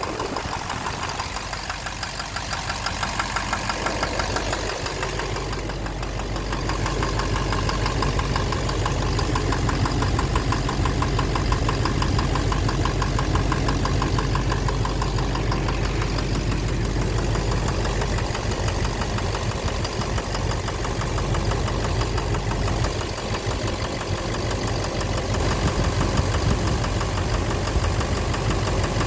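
Duramax LMM 6.6 L V8 turbodiesel idling with a steady, rhythmic knock, louder after about five seconds. The knock seems to come from the engine, possibly the bottom end; injector knock and a cracked flexplate are the other suspects.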